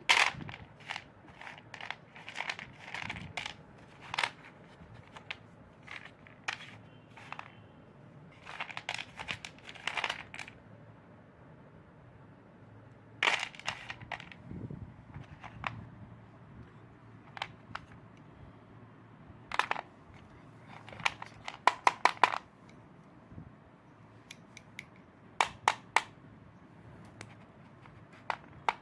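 Slate pencils being bitten and chewed: sharp, dry crunches and snaps coming in irregular clusters with short pauses between.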